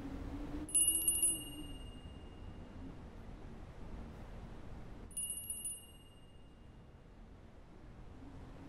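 A small high-pitched bell-like chime rung twice in brief rapid trills, about five seconds apart, over a faint low wavering hum that fades out early.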